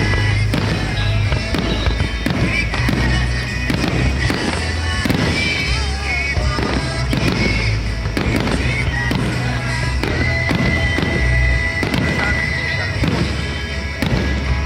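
Fireworks going off in quick succession, many sharp bangs and crackles one after another, with music playing underneath, its bass steady.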